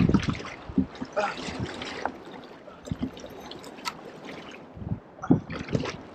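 Sea water splashing and sloshing against the side of a plastic pedal kayak in uneven surges, with a few short knocks.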